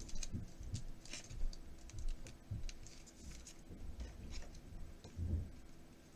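Trading cards being handled on a table: scattered light taps, clicks and rustles as cards are slid, sorted and set down, over a faint steady hum.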